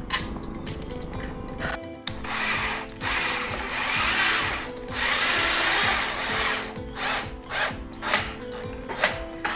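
Cordless drill driving a screw through a handle plate into an aluminium door frame, starting about two seconds in: three runs of a second or two each, then several short bursts as the screw is snugged down.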